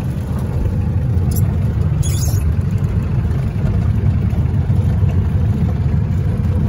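Old jeep's engine running as it drives over a dirt field, a steady low rumble, with two short rattles about one and two seconds in.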